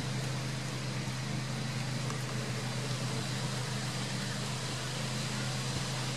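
A steady low mechanical hum of an engine or motor running, unchanging throughout, over a constant hiss.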